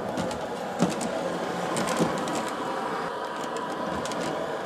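Model CTA 'L' train running along the layout track: a steady motor hum with irregular clicks from the wheels on the rails, two louder knocks about one and two seconds in.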